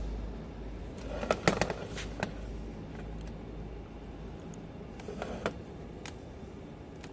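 Spiral duct forming machine running with a steady low hum that fades about halfway through. It is broken by clusters of sharp clicks and knocks about a second in and again about five seconds in.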